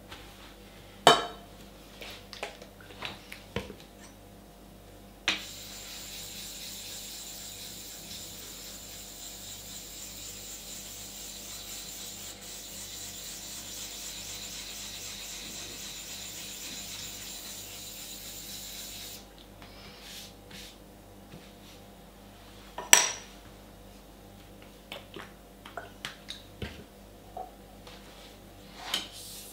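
A small block rubbed steadily back and forth over a wet whetstone clamped in a stone holder, making a continuous gritty scraping for about fourteen seconds. Before and after it come scattered clicks and two loud clacks of things set down on the hard table.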